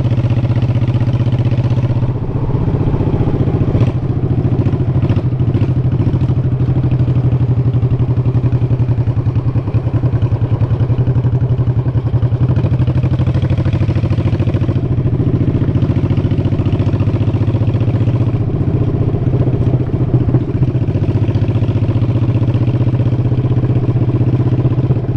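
Motorcycle V-twin engine running steadily while riding at a constant pace, with road and wind noise.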